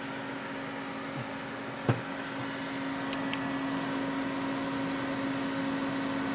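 Steady electrical hum with a fan-like whir, one sharp click about two seconds in and two faint ticks a second later.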